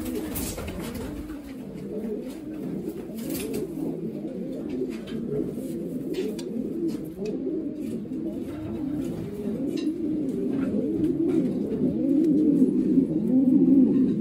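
Racing pigeons cooing, many coos overlapping in a steady run that grows louder near the end.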